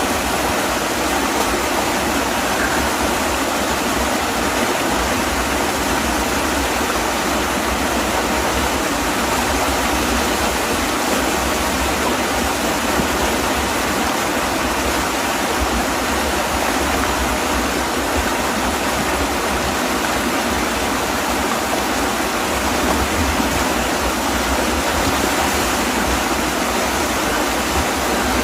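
Rushing river water, a steady, unbroken sound.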